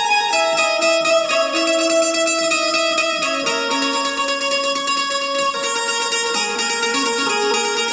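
Electric Indian banjo (bulbul tarang) played with its typewriter-style keys, strumming a melody whose held notes change about every half second to a second.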